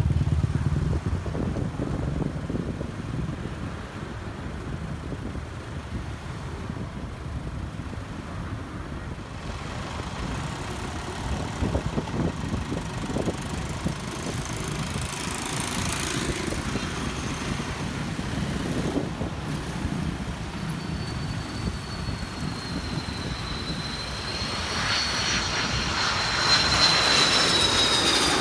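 A steady low rumble, then a twin-engine jet airliner approaching to land: its engine whine comes in high about three-quarters of the way through, slowly drops in pitch and grows louder as the jet nears overhead.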